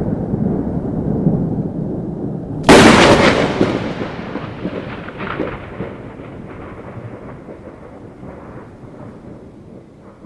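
Thunder: a low rumble, then a sharp, loud thunderclap about two and a half seconds in that rolls on and slowly fades over the next several seconds.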